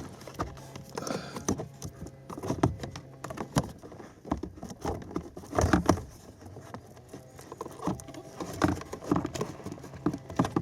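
Irregular plastic knocks, clicks and scraping as a blower motor is worked up into its plastic housing under a dashboard and seated.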